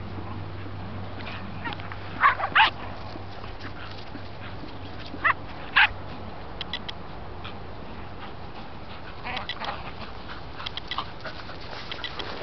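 Shetland sheepdogs barking: two quick barks about two seconds in, two more around five to six seconds, then fainter, scattered yips later on.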